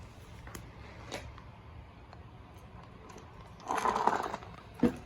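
Handling noises from a plastic stick vacuum being picked up and worked by hand: a few light clicks, a short rattling scrape about four seconds in, then one sharp click.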